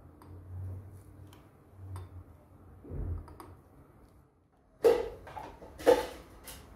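Handling of a small electric spice grinder loaded with nutmeg: a few faint clicks and short low hums, then two sharp knocks about a second apart near the end.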